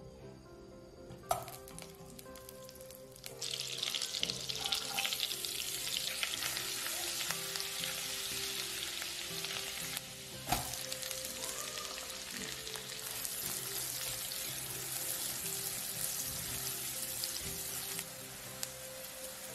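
Butter melting and sizzling in hot oil in a frying pan. A small knock comes about a second in, the sizzle starts about three seconds in and goes on steadily, and a sharp knock comes near the middle; by the end chopped onion and garlic are frying in the butter. Soft background music plays underneath.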